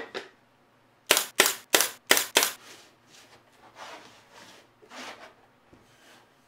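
Five sharp snaps in quick succession, about three a second, followed by softer scraping or rustling sounds.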